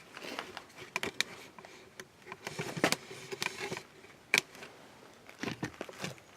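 Irregular clicks, taps and knocks of hands working on plastic car parts, with sharper clicks about three and four and a half seconds in.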